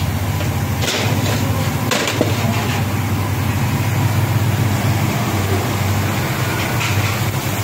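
A steady low engine rumble with an even hiss over it and a couple of sharp clicks near the start.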